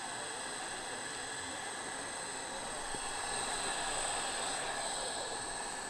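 Steady background hiss with a faint, high-pitched whine running through it; no distinct knocks or voices stand out.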